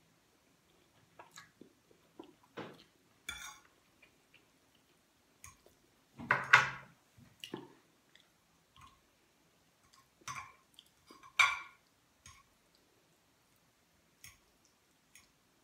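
Eating sounds: a metal fork clinking and scraping on a plate as spaghetti is twirled, with chewing and slurping. They come as scattered short sounds, the loudest about six and a half and eleven and a half seconds in.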